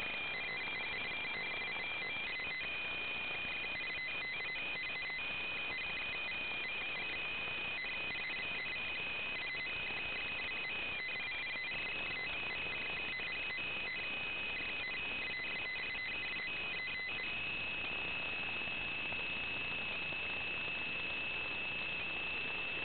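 Steady hiss with high, thin electronic tones that flicker on and off rapidly, then settle into one unbroken high tone about 17 seconds in: static and interference on a wireless video link's audio.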